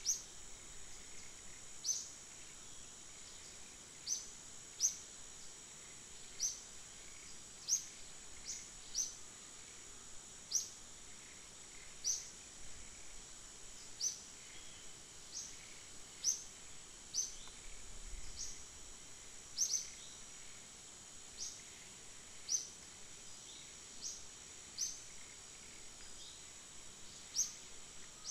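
Tropical forest ambience: a steady high-pitched insect drone, with a short, high chirp repeating about once every second or so.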